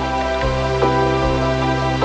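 Background music: a soft new-age track of sustained chords.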